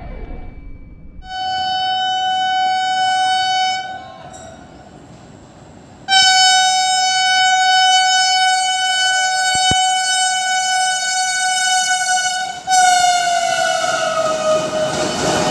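Vande Bharat Express train horn: a short blast, then a long blast of about six seconds as the train approaches at about 110 km/h. As the train passes, the horn's pitch drops and the loud rush of the passing coaches comes in.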